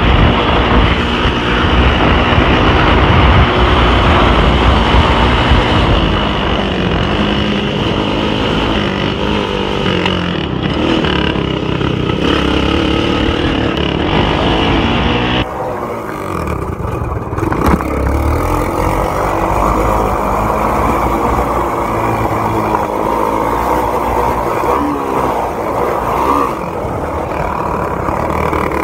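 Onboard sound of a racing vehicle's engine running hard on a dirt oval, with wind and rumble over it. Its pitch shifts as it goes, and the sound changes abruptly a little past halfway, losing much of its upper hiss.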